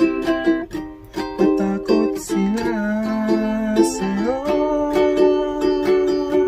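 A man singing a Tagalog ballad to his own strummed Makala ukulele. Steady chord strums run under long held vocal notes that slide in pitch between about two and four and a half seconds in.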